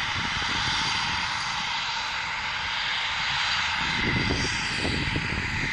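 Eurofighter Typhoon fighter jets' twin EJ200 turbofan engines running with a steady jet hiss. A deeper low rumble swells in about four seconds in.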